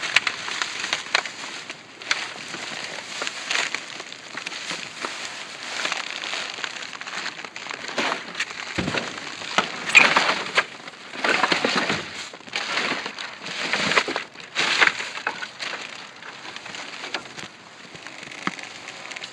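Trash being rummaged through: plastic bags and packaging rustling and crinkling in irregular bursts as items are pulled about.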